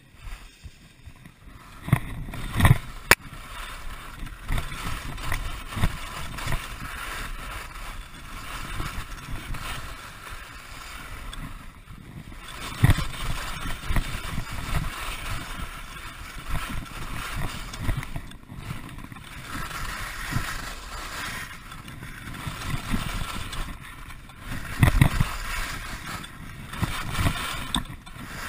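Skis scraping and chattering over rock-hard, overnight-frozen snow, with a few sharp knocks as they hit bumps and ridges: about two seconds in, near the middle, and near the end.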